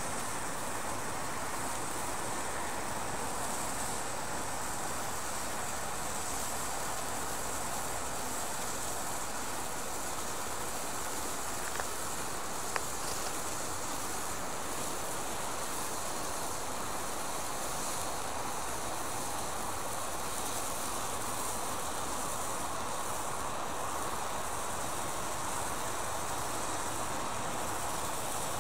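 Ikaros red hand flare burning on the ground with a steady, even hiss, with a couple of faint pops about twelve and thirteen seconds in.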